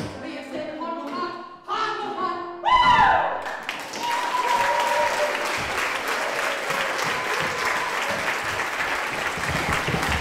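Mezzo-soprano and piano finish a cabaret song with a loud final sung note that slides down in pitch, about three seconds in. An audience then applauds steadily.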